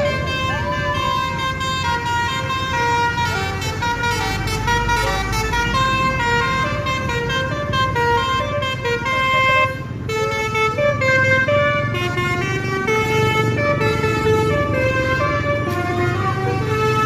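Telolet basuri, the multi-tone musical horn of Indonesian buses, playing a fast melody of short stepped notes over a steady low rumble.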